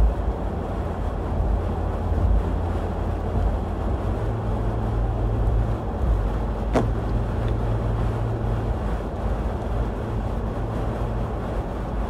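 Steady road and engine noise of a car driving on a wet, snowy highway, heard from inside the car, dominated by a low rumble. A single sharp click sounds about seven seconds in.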